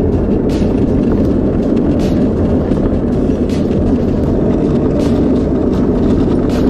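Luge cart rolling fast down a concrete track: a steady, loud rumble of its wheels on the concrete, with a light click about every second and a half.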